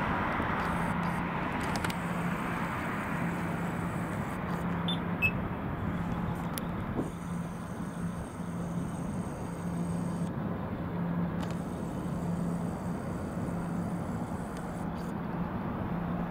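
Road traffic at an intersection. A passing car fades away at the start, leaving a steady distant traffic hiss, with a faint low hum pulsing on and off about once a second.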